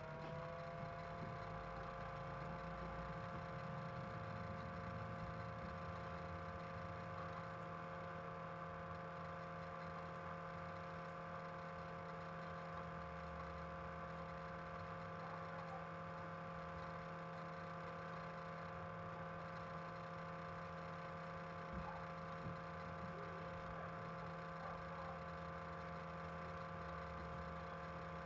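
Steady machine hum made of several held tones, which rise a little and settle right at the start, over a low rumble.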